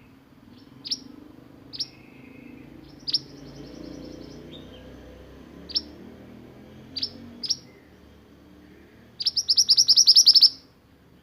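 Male mantenan songbird singing: a string of sharp, high single notes a second or two apart with a few short trills, then near the end a loud, fast rolling trill lasting about a second and a half, the 'roll nembak' song type.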